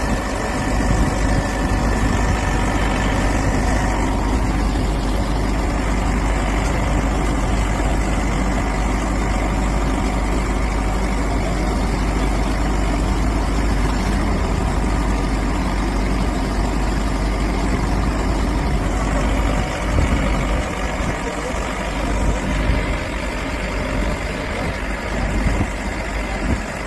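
A large vehicle engine running steadily with a low, even drone, a little less even from about twenty seconds in.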